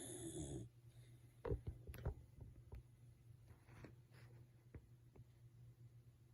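Sleeping dog snoring and breathing: a snuffling snore cuts off in the first second, then a faint breath a few seconds later, with a few soft clicks and knocks in between.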